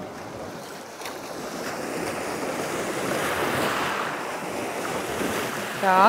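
Black Sea surf washing onto the shore: a wave's wash swells about a second in, peaks in the middle and eases off again.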